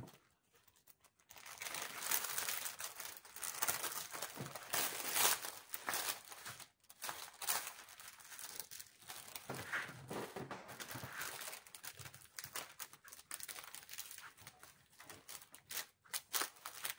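Packaging crinkling and rustling in irregular bursts as a diamond painting kit is handled and unwrapped, starting about a second in.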